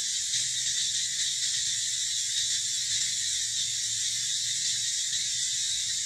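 Steady high-pitched insect chorus, an even buzzing hiss that never breaks.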